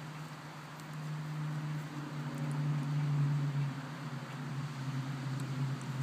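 A motor running with a steady low hum, growing louder about a second in.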